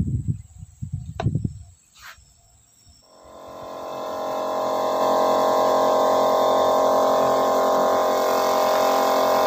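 Handling thumps and a couple of clicks, then about three seconds in an electric air compressor for a spray gun starts, its motor rising over a couple of seconds to a steady, even running hum.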